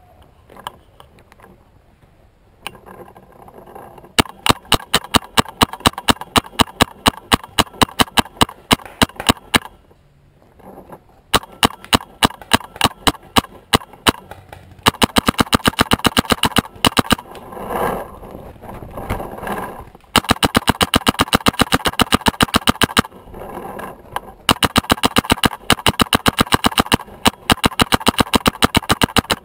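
Paintball marker firing in long rapid strings, several shots a second, with short pauses between strings.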